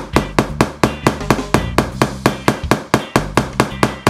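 Small brass-headed hammer tapping a brad nail into a wooden board in quick, light, even strokes, about four a second.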